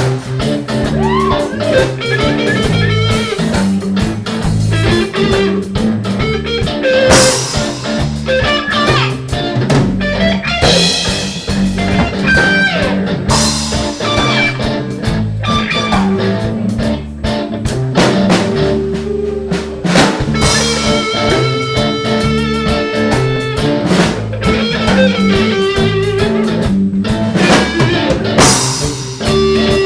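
Live blues band playing an instrumental passage: guitar lines over a steady drum kit beat.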